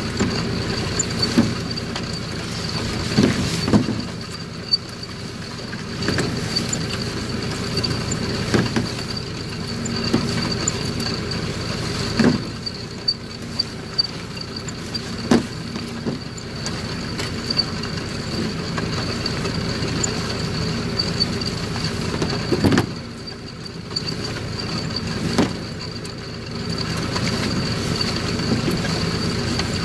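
An engine running steadily with a thin high whine over it, broken by scattered sharp clicks and knocks.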